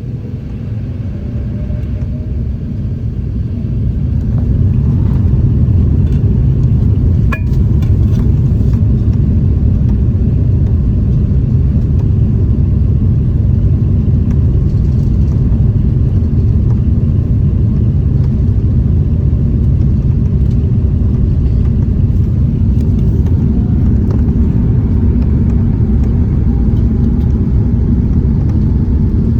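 Airbus A380's Rolls-Royce Trent 900 engines spooling up to takeoff thrust, heard inside the cabin. The noise grows over the first few seconds under a faint rising whine, then settles into a steady, loud low rumble of the takeoff roll.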